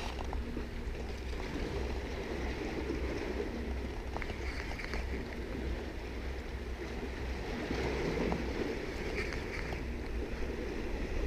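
Steady wind and sea-water noise around an open boat at sea, with a constant low rumble underneath.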